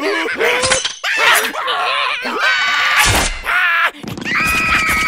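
Cartoon mouse character shrieking and squealing in wordless gibberish, with slapstick impact and crash sound effects, including a heavy thud about three seconds in. Near the end a held musical chord comes in.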